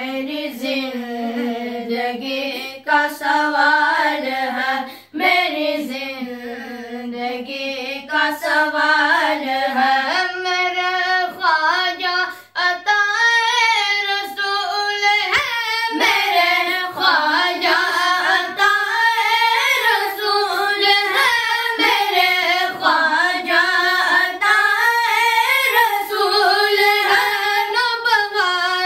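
A group of boys singing a manqabat, a devotional song in praise of a Sufi saint, with no instruments, in a flowing, ornamented melody. The melody moves higher about ten seconds in.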